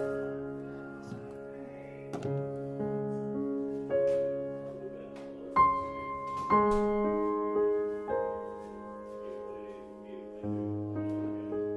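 Background piano music with slow, held notes that change every second or two, and a few sharp knocks over it.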